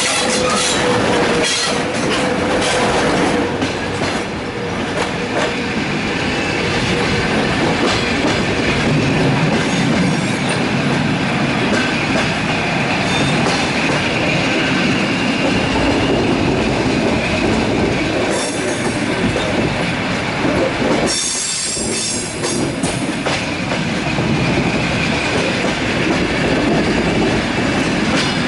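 Russian Railways passenger train running on the rails, heard from on board. There is a steady rumble with wheel clicks over the rail joints, and a faint steady squeal over the first few seconds.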